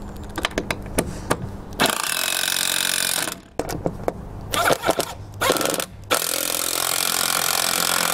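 DeWalt impact driver running in two bursts, one of about a second and a half and then a longer one from about six seconds in, driving home the 5 mm bolts that hold a roof rail to the roof. Light clicks and knocks from handling the tool and bolts come before and between the bursts.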